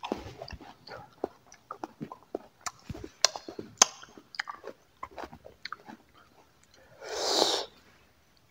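Close-miked chewing of a crisp apple: many sharp crunches and wet mouth clicks. About seven seconds in comes one short, louder noisy rush.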